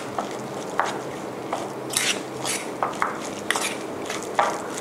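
Metal spoon stirring sticky minced pork in a stainless steel mixing bowl: irregular clinks and scrapes of the spoon against the bowl.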